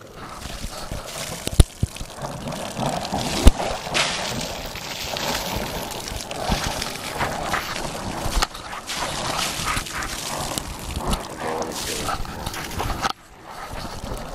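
Filtrate water and air spurting irregularly from a filter press outlet as its air-inflated membrane plates squeeze the last water out of the sludge cake. Two sharp knocks in the first few seconds, and the sound cuts off suddenly about a second before the end.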